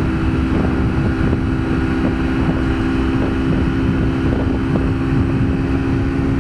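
Kawasaki Ninja 250R's parallel-twin engine running at a steady speed while cruising, with wind rumbling over the helmet. It is heard through a microphone inside the rider's helmet.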